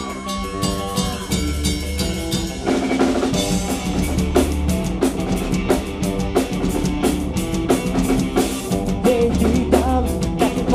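Live rock band playing an instrumental passage with no singing: drum kit with snare, bass drum and cymbal hits over bass guitar and electric guitar. About three seconds in the band gets louder, with cymbals struck much more densely.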